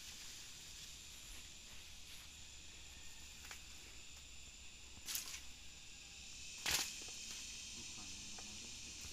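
Forest ambience with a steady high insect hum. Twice, brief crackles of undergrowth as a person brushes and steps through it, the second one louder, about two-thirds of the way in.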